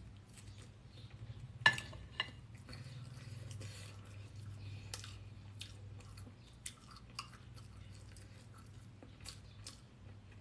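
A person chewing a bite of fried egg with the mouth close to the microphone: soft, wet mouth clicks scattered through, with a sharper click a little under two seconds in.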